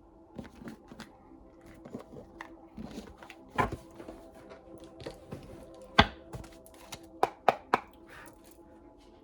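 Soft, steady background music with tarot cards being handled on a table: scattered sharp taps and snaps, the loudest about six seconds in, then three quick ones in a row shortly after.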